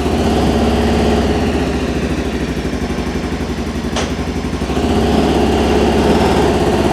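Arctic Cat Wildcat Sport 700 side-by-side engine running roughly just after starting, with a hard misfire: it is firing on only one cylinder, which the owner suspects is fouled spark plugs. A single sharp click comes about four seconds in, and the engine gets slightly louder a little after that.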